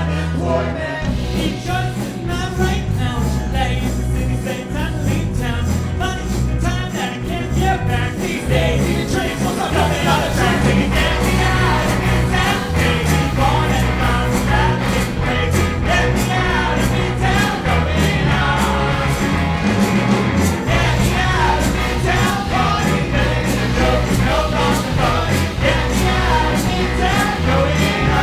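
A live ska band playing, with a moving bass line under a steady beat and melodic lines above, growing fuller about nine seconds in.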